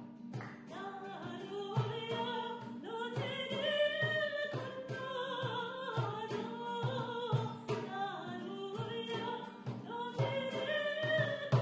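A woman singing held, gliding notes, accompanied by a strummed acoustic guitar and a hand drum keeping a steady beat.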